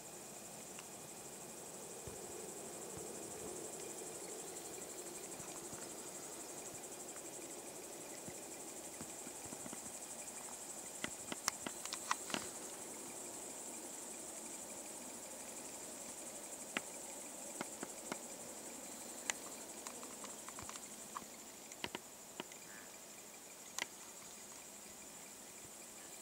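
Steady high-pitched chirring of crickets or bush-crickets, with scattered sharp clicks and snaps, a cluster of them about halfway through.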